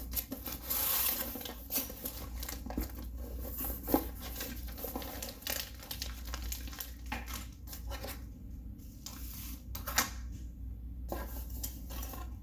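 A cardboard box being opened and unpacked by hand: a tearing rustle of cardboard and paper about a second in, then plastic-bag crinkling and small tools and kit pieces clinking and knocking against each other and the box.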